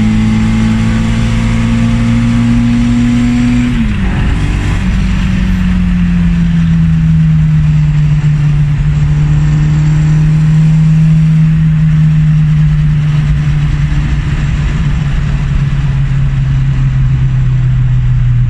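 Morris Mini's 1330 Cooper S A-series engine heard from inside the car on the move. The engine note climbs slowly as it pulls, drops sharply at a gear change about four seconds in, then holds a steady, slightly falling pitch.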